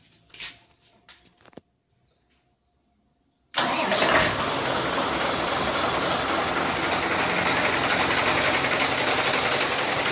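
A Mitsubishi Fuso 6D16 diesel truck engine starts about three and a half seconds in, coming in suddenly, then runs steadily with a metallic clatter. The clatter comes from the fuel injection pump's timer, which has come loose, probably for lack of oil.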